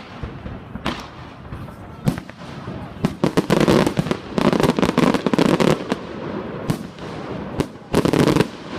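Fireworks display: single bangs of shells bursting a second or so apart, a dense run of rapid crackling in the middle, and another short run of crackles near the end.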